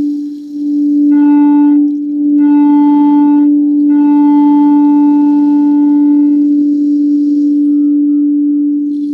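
Singing bowl played with a steady, sustained low ringing tone. A brighter layer of higher overtones swells in three times over the first six or so seconds, then fades, leaving the pure tone.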